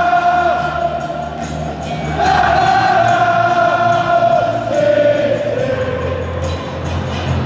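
Choir-like singing in long, held notes: one phrase, a short break about a second and a half in, then a second phrase that falls slowly in pitch.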